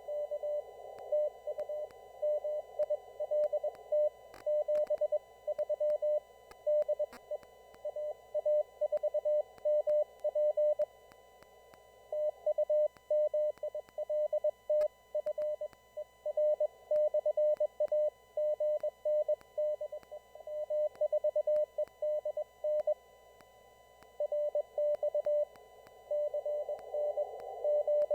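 Morse code (CW) signals received on an amateur radio: a single mid-pitched tone keyed on and off in quick dots and dashes over a narrow band of receiver hiss. There are short breaks between transmissions about 11 seconds and 23 seconds in.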